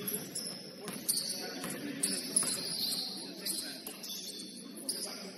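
Basketball game: sneakers squeaking in short high chirps on a gym court, with a few knocks such as ball bounces and a murmur of distant voices.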